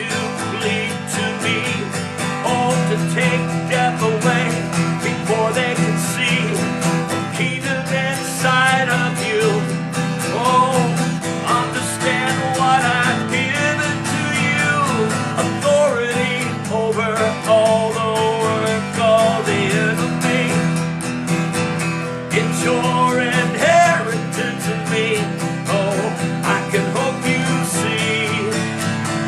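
Wordless worship music led by acoustic guitar: held chords sit under a wavering, bending melody line, with no words sung.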